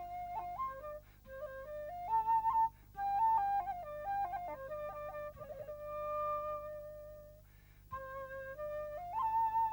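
Solo bamboo flute playing a stepping melody with quick ornamental turns. It holds one long note past the middle, breaks off briefly, then picks the tune up again.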